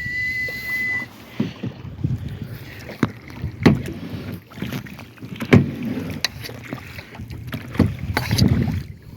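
Kayak paddling: paddle strokes through the water with knocks and splashes every second or two. A held whistled note carries into the start and stops about a second in.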